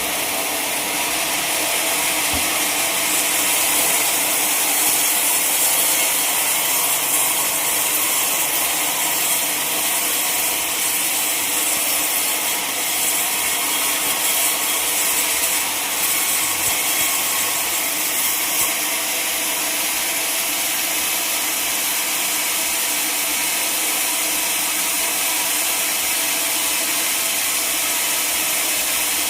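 Sawmill saw cutting steadily through a log: a continuous, even sawing noise, a little louder through the first half.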